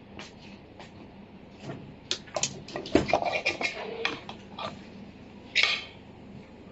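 Kitchen clatter of a metal utensil against an aluminium cooking pot: scattered clicks and knocks, thickest and loudest between about two and four seconds in, then one short scraping rush near the end.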